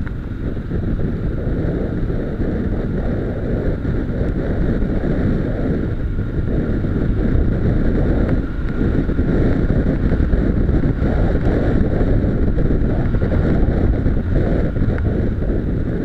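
Wind buffeting the microphone of a camera mounted on a moving motorcycle, over the bike's engine running steadily and its tyres on loose gravel.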